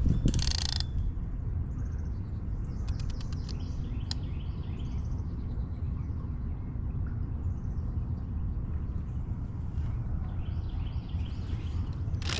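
Outdoor night ambience: a steady low rumble with faint, short, high falling chirps repeating throughout, a brief hiss just after the start and a few sharp clicks around the middle.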